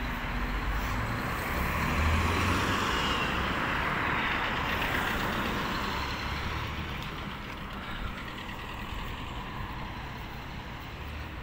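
Street traffic: a motor vehicle passes, its engine and tyre noise swelling about two seconds in and fading slowly over the following seconds.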